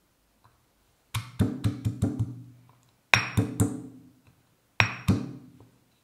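Stone pestle pounding garlic in a heavy stone mortar: three quick runs of sharp knocks, about six, then four, then two, each with a brief low ring from the stone.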